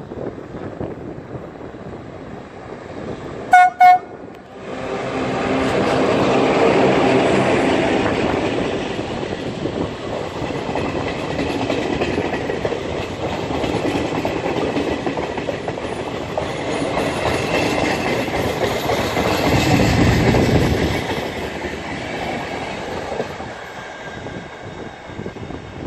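Electric locomotive's horn sounds two short blasts, then the locomotive and its passenger coaches pass close by: a steady rumble of steel wheels on the rails that swells as the train arrives and eases off near the end as the last coach goes by.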